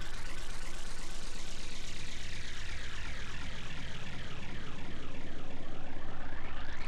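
Steady rushing, engine-like drone with a slow phasing sweep that falls through the first half, then rises again near the end.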